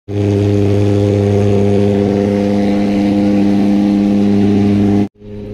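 A steady machine hum at one unchanging low pitch, loud. It cuts out briefly near the end and comes back quieter.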